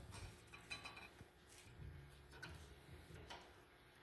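Near silence with a few faint, scattered light clicks: metal handling as a spring retaining clip is fitted onto a front brake caliper.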